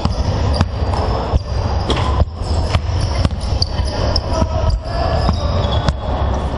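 Several basketballs bouncing on a wooden gym floor, with irregular, overlapping thuds several times a second, echoing in a large sports hall over a steady low hum.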